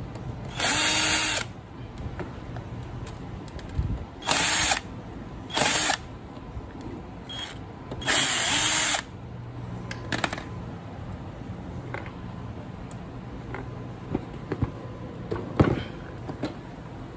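Cordless drill-driver unscrewing screws from a metal equipment case, its motor whirring in four short bursts that each spin up and wind down, all within the first nine seconds. After that come scattered small clicks and one sharp knock.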